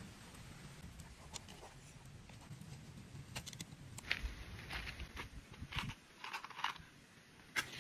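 Close-up handling sounds of hands working matchsticks and a striker strip into a plastic sandal sole: scattered soft clicks, taps and short scrapes, with a few louder scrapes around the middle and a sharp click near the end.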